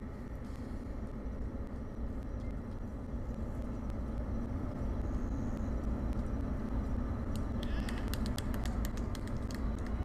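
Falcon 9 rocket's nine Merlin engines heard from the ground in the first half-minute of climb: a steady low rumble that grows slightly louder, with a rapid crackle joining near the end.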